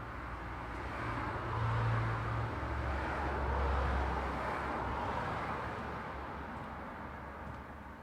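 Road traffic: a vehicle passes by. Its low engine hum and tyre noise rise to a peak a couple of seconds in, then fade away.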